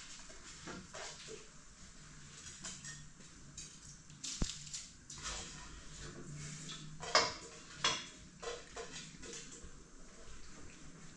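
A metal ladle clinking and scraping against a large cooking pot as food is stirred: scattered light knocks, the loudest a little after halfway through.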